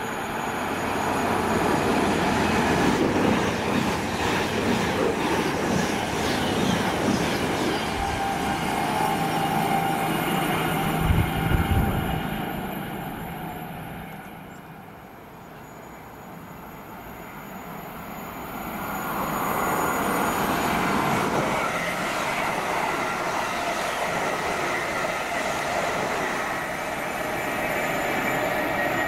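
Trains passing through a station: a Class 221 Super Voyager diesel unit in the first half, with a brief low thump about eleven seconds in. After a lull, a London Northwestern Class 350 Desiro electric multiple unit runs along the platform near the end, with wheel and rail noise.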